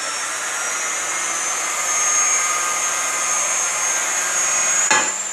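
Variable-speed grinder spinning a dry 11,000-grit diamond polishing pad against marble to buff up the shine. Its high whine climbs in pitch over the first couple of seconds, then holds steady over a hissing rush, with a click near the end.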